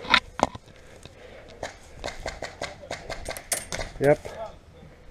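Airsoft BBs striking the hard surfaces around a pinned-down player: two loud sharp clicks at the start, then a rapid, irregular string of sharp clicks for about two seconds.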